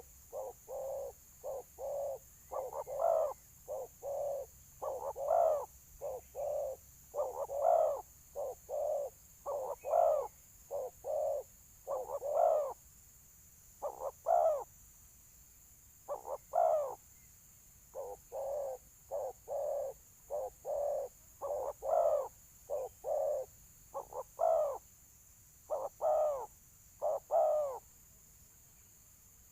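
Spotted doves (balam) cooing in a territorial contest with a decoy dove. Phrases of short coos each end in a louder, longer note and repeat about every two seconds, stopping near the end.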